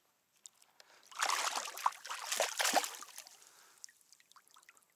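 Water splashing at the surface beside a kayak as a hooked trevally thrashes on the line, loudest for about two seconds starting around a second in.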